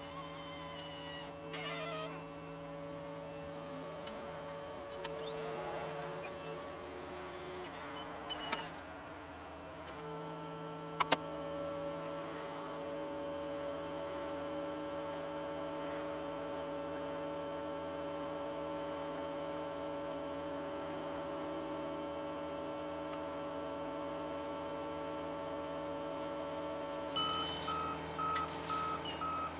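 John Deere 75 excavator running at a steady working hum as it digs, with a few short squeals and a sharp click about 11 seconds in. Near the end a backup alarm starts beeping in a steady pulse.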